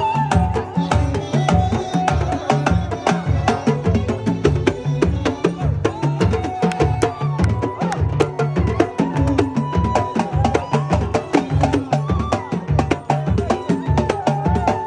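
Arabic folk-style music: a steady, fast hand-drum beat under a winding melodic line.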